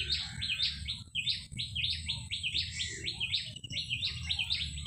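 Small birds chirping in a rapid, unbroken series, about four or five chirps a second, over a low rumble.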